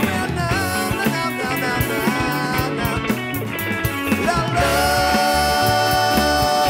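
Rock band music: a man singing over electric guitar, keyboards, bass and a steady drum beat. About four and a half seconds in, the wavering sung line gives way to long held notes.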